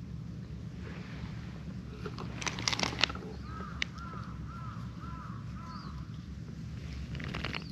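A bird calling five times in an even series, about half a second apart, starting midway through. Just before it comes a brief cluster of rustling knocks, the loudest sound here, and there is more rustling near the end.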